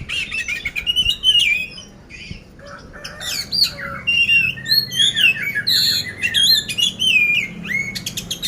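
Oriental magpie-robin (kacer poci) singing a fast, varied stream of whistles, slurred rising and falling notes and short harsh chips, a brief quieter spell about two seconds in. This is the rough, mimicked song material that keepers call "isian kasar".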